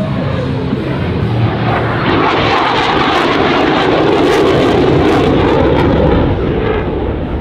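CF-18 Hornet's twin turbofan engines roaring as the fighter banks through a tight turn overhead. The jet noise swells about two seconds in, stays loud, and eases off near the end.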